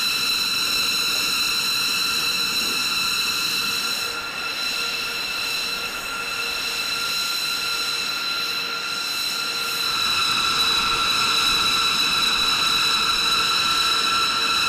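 Steady high-pitched turbine whine of aircraft on the ramp, a set of even, constant tones. It dips a little about four seconds in and grows slightly louder about ten seconds in.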